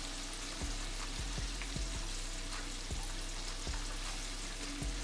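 Food frying in hot oil in a pan, with a steady sizzle. Background music with a low, even beat plays over it.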